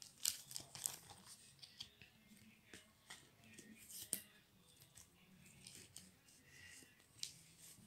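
Trading cards and plastic binder pocket pages being handled: faint, irregular rustles and short clicks.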